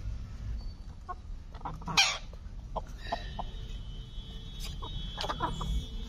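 Domestic hens clucking in short, scattered calls, with one louder, harsher call about two seconds in and a quick run of clucks near the end.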